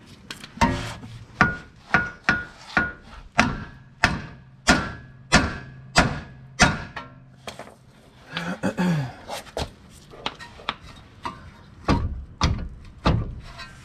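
Hammer blows on the steel lower control arm to shock the ball joint's taper loose from the knuckle, each with a short metallic ring: about a dozen strikes in steady succession, a pause, then a few more near the end. The joint does not let go.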